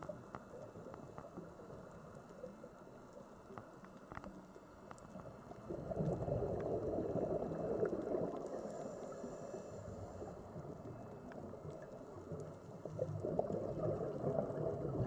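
Underwater ambience picked up by a camera on a reef: a low rushing water noise that swells about six seconds in and again near the end, with scattered sharp clicks.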